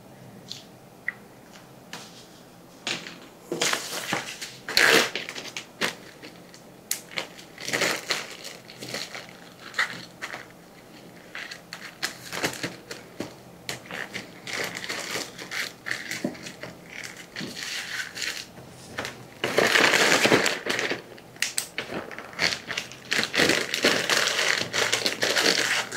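Plastic zipper-lock bags crinkling and rustling in irregular bursts as powdered gravy mix is moved from one bag into another and the filled bag is handled. The rustling is loudest about twenty seconds in and again near the end.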